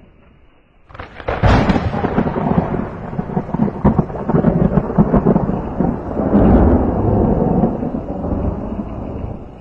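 Thunder: a sudden loud crash about a second in that rolls on as a rumble for several seconds and eases off near the end, over heavy rain.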